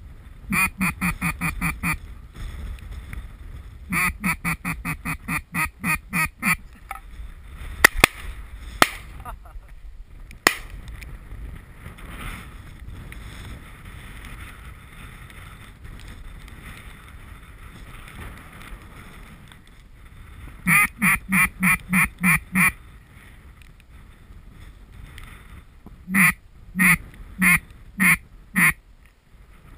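Loud runs of quick duck quacks, about six to ten quacks per run, four runs in all, the last one slower with fewer quacks. A steady wind noise lies under it, with a few sharp clicks in the middle.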